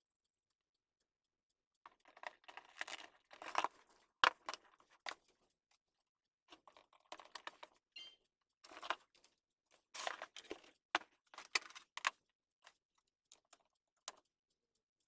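Handling noise from PC parts being assembled: bursts of rustling and crinkling with sharp plastic and metal clicks, one louder snap about four seconds in.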